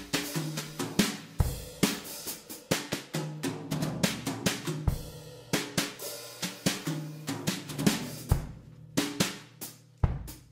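Background music with a steady drum-kit beat of snare, bass drum and hi-hat over a bass line.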